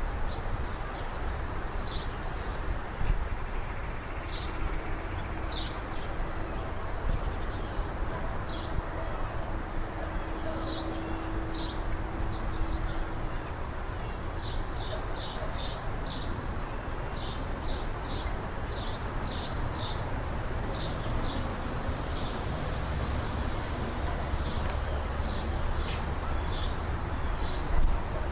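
Small birds at a feeder giving short, high chirps, singly and in quick runs, busiest toward the middle, over a steady low background rumble.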